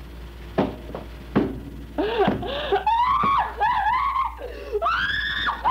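Two sharp knocks, then a woman's high-pitched laughter that rises and falls in wavering, shrieking swoops.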